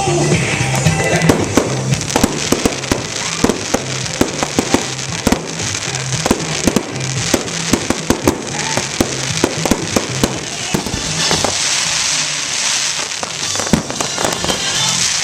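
Fireworks display: a rapid run of bangs and pops, then a long crackling hiss from about eleven seconds in. Music with a steady bass line plays underneath.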